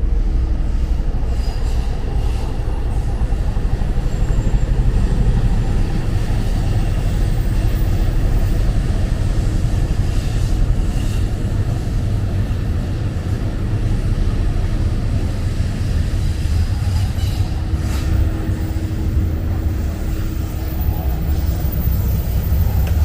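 Steady low rumble of urban background noise, with a faint steady hum joining in the last third.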